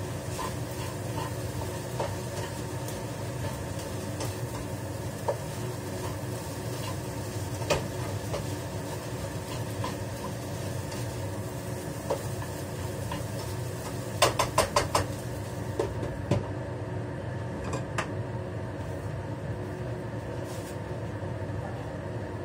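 Metal spatula scraping and tapping against a wok while stir-frying, with a quick run of about half a dozen clinks about two-thirds of the way in, over a steady mechanical hum.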